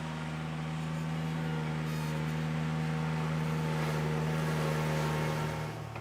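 Ventrac compact tractor engine running steadily with its stump grinder attachment, an even engine note under a rushing noise. Near the end the level drops and the pitch settles slightly lower.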